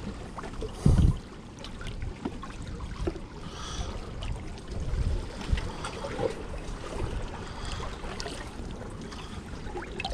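Water sloshing and trickling in a plastic bucket as hands stir in it and lift out a small cuttlefish, with scattered small splashes and knocks, and a short low thump about a second in.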